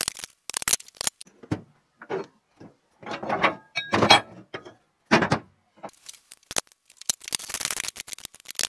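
Hand tools working on the bolts of an aluminum Andersen fifth-wheel hitch base: scattered metal knocks and clinks, a longer scraping clatter with brief ringing about three to four seconds in, and a run of fast clicks near the end.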